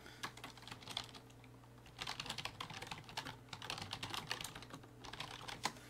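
Typing on a computer keyboard: a short run of keystrokes near the start, then a quicker, denser run from about two seconds in, over a faint steady hum.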